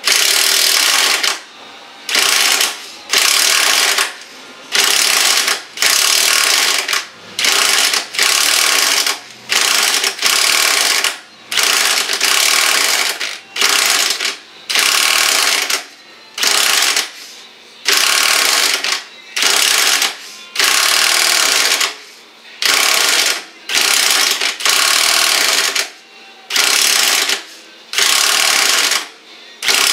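Impact wrench hammering on a seized, rusted lower control arm bolt in repeated bursts of about a second each, with short pauses between, the bolt not yet breaking loose.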